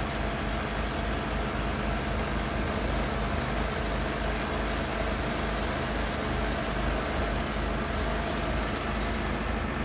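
Kohler CH440 Command PRO single-cylinder gas engine of a stump grinder running steadily while its toothed cutter wheel grinds into a wood stump.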